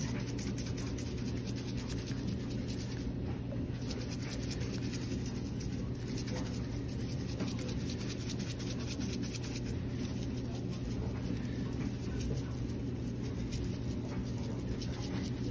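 A steady low hum, with faint scratchy rubbing and shaking as seasoning from a plastic shaker jar is sprinkled and rubbed over raw chicken skin.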